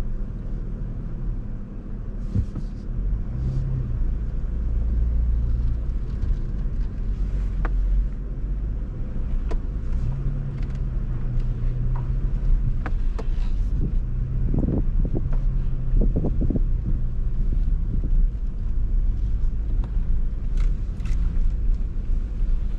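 A 4x4 truck's engine running at low revs while crawling slowly over a rocky off-road trail. The engine note rises now and then under throttle, with scattered knocks and clicks from rocks and the chassis.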